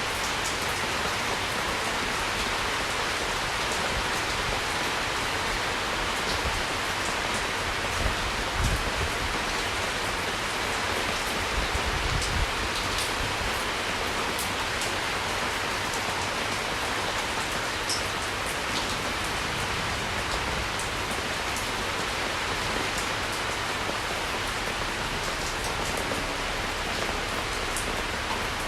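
Steady rainfall: a dense, even hiss of rain with scattered individual drop ticks. Brief low rumbles swell twice, about a third of the way in.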